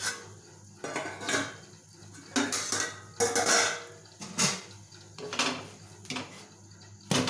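Cookware clattering: a pan lid and a metal spatula clinking and scraping against a frying pan in a run of irregular clatters, with a sharp knock near the end.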